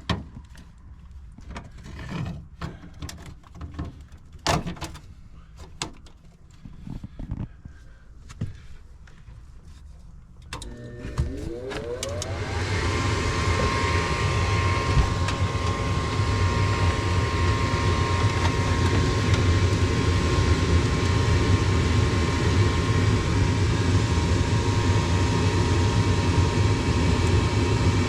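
Scattered knocks and clicks, then about ten seconds in the Goodman furnace starts up: a motor spins up with a rising whine and settles into a steady run with a low hum and rushing air. This is the furnace being fired up on its newly replaced hot surface igniter.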